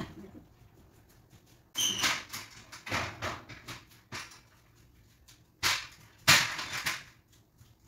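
Aluminium stepladder being handled and moved, giving a few short scraping clatters with quiet gaps between them.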